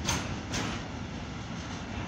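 Container freight train wagons rolling past with a steady low rumble. Two sharp wheel clacks about half a second apart near the start.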